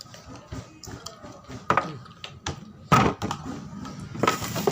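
Eating sounds from a person eating cup noodles: small soft clicks, then three louder mouth noises, near two seconds in, at about three seconds, and just before the end.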